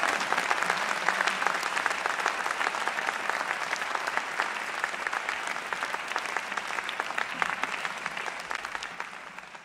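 Audience applauding, a dense patter of many hands clapping that thins and fades away near the end.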